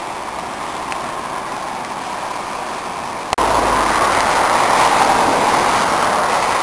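Steady roar of a flooded river's rushing water. It cuts off sharply about a third of the way in and resumes louder.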